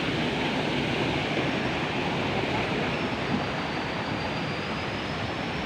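Waterfall rushing in a steady, even roar of falling water. A faint thin high tone rises slowly in the second half.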